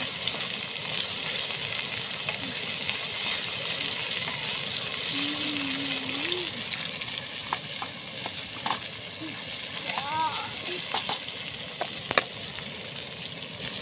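Chopped bell pepper and onion sizzling steadily in hot oil in a small aluminium pan. A wooden spatula stirs them, with a few light knocks against the pan.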